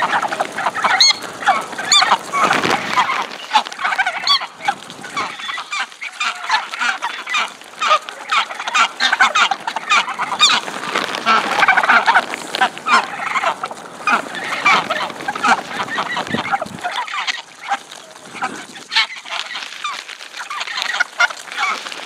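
A flock of greylag geese honking and calling almost without pause while they feed, with many quick taps of bills pecking grain off the pavement.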